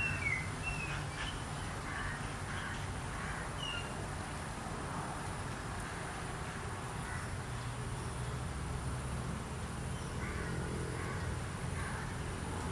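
Outdoor ambience: a few short bird chirps, clustered in the first four seconds and again about ten seconds in, over a steady low rumble.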